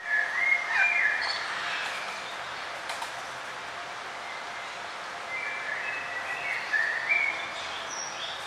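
A songbird singing short phrases of chirping notes, one burst right at the start and another in the second half, over a steady hiss of outdoor background noise.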